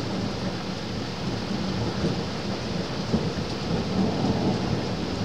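Thunder rumbling low over a steady hiss, swelling about four seconds in.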